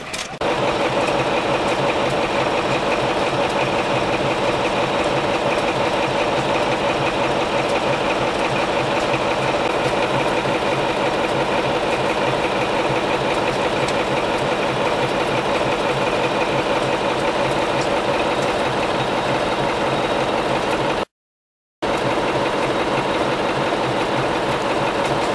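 Large multi-cylinder stationary engine running steadily at idle, a loud even drone, with a brief break in the sound near the end.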